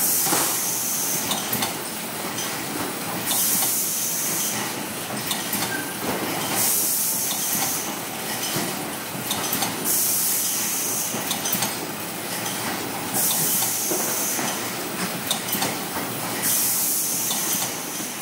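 Horizontal flow-wrap packaging machine running, with a steady clatter of small clicks. A high hiss about a second long comes six times, roughly every three seconds.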